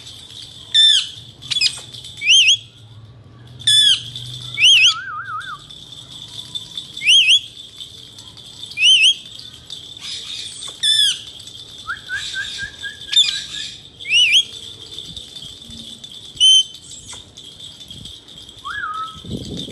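Indian ringneck parakeet giving loud, short, sharp screeching calls, about ten of them, one every second or two, with quieter trilling chatter between them.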